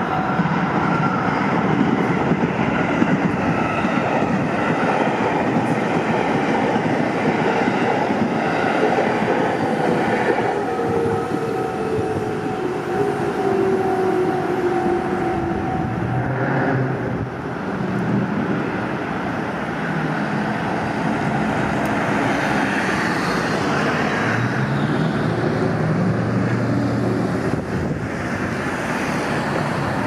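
Train rolling over a level crossing with a rumble of wheels on rail, while the crossing's warning bells ring steadily. About halfway through the bells stop, and cars then pull away and drive over the crossing.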